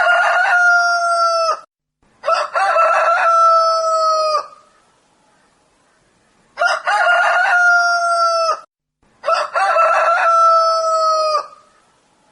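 Rooster crowing: four long cock-a-doodle-doo crows of about two seconds each, in two pairs. Each crow rises quickly and then holds a long, slightly falling final note.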